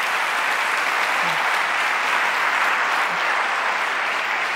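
A large audience applauding, a dense, steady clapping that holds at an even level throughout.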